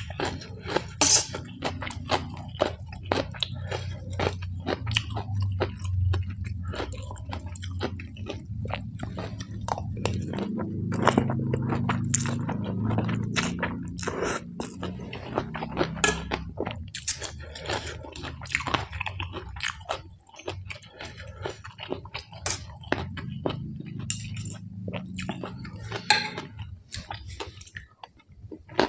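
Close-up eating sounds: wet chewing and crunching as rice noodles in curry are eaten with raw vegetables, with a longer, louder stretch of sucking noodles in about ten to fourteen seconds in. Sharp clicks of a metal spoon and fork on a stainless-steel tray come throughout.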